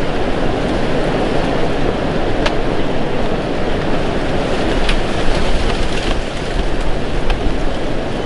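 Strong wind buffeting the microphone: a steady, loud rumbling rush with a few faint clicks.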